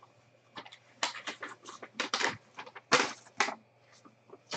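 Irregular crackling and rustling of packaging being handled, in short bursts of a fraction of a second each, the strongest about three seconds in.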